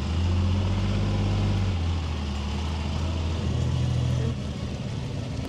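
Diesel engine of a Dodge 3500 dually pickup running at low speed as it pulls a fifth-wheel trailer away. The steady low engine note shifts about two seconds in and eases off after about four seconds.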